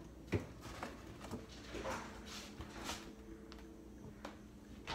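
Faint clicks and light knocks of things being moved about in an open refrigerator as eggs are taken out, over a faint steady hum. The sharpest click is about a third of a second in.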